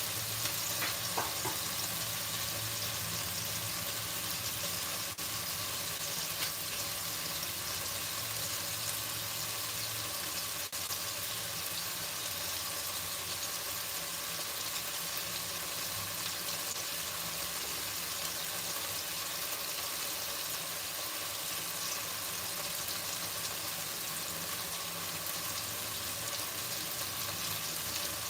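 Chicken pieces frying in hot oil in a pan, a steady sizzling hiss as they brown.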